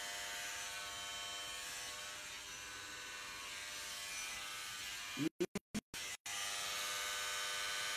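Electric hair clippers running with a steady buzz as they shave a head down to the scalp. The sound cuts out completely several times in quick succession about five seconds in, then the buzz resumes.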